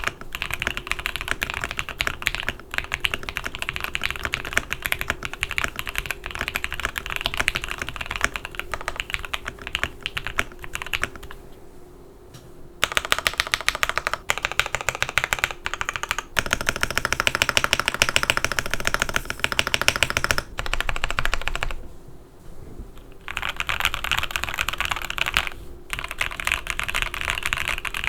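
Typing on a Photon wireless mechanical keyboard fitted with factory-lubed Gateron EF Curry linear switches, PBT keycaps, a gasket-mounted polycarbonate plate and all foam installed. The typing is fast and steady, with two brief pauses about 11 and 22 seconds in.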